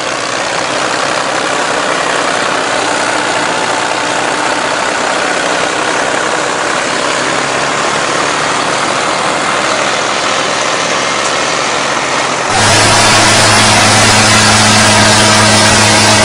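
Tractor diesel engines running hard under load. About twelve seconds in, the sound cuts to a louder, steadier engine drone with a strong low hum, from two tractors straining against each other in a tug-of-war.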